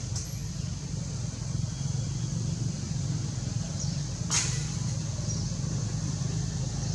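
Steady low outdoor rumble with a thin steady high hiss over it, and one brief sharp crackle about four seconds in.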